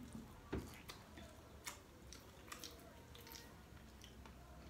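Quiet eating sounds: scattered small clicks and soft squishes of seafood and rice being handled and eaten by hand, with a sharper click about half a second in.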